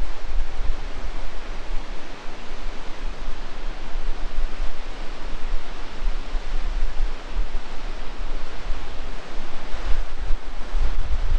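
Waterfall rushing steadily, with wind buffeting the microphone in low gusts that grow stronger near the end.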